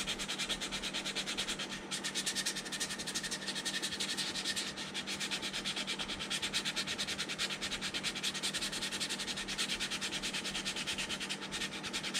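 Sandpaper, 180 grit, rubbed by hand in quick, even back-and-forth strokes over hardened putty on a plastic model hull, knocking down the excess filler over a seam. The strokes stop right at the end.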